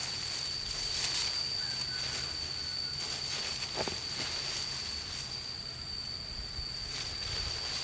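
A steady high-pitched insect call, unbroken, over outdoor background noise, with a few brief soft rustles or knocks.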